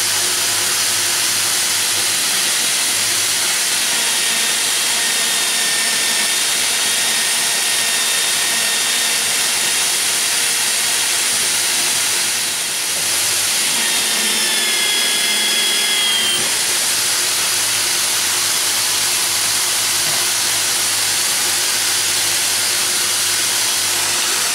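Motor-driven wire cup brush spinning and scouring rust off the steel slide of an old adjustable wrench held against it: a steady loud hiss of the bristles over the motor's hum. Thin high whistling tones come and go as the metal is pressed in, and the sound dips briefly about halfway.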